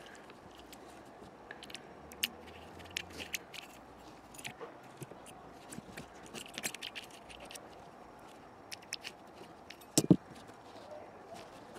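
Small metal clicks, ticks and scrapes of a pick tool against a brake master cylinder piston and its brass shim washers and rubber seals as the parts are handled. A louder knock comes about ten seconds in.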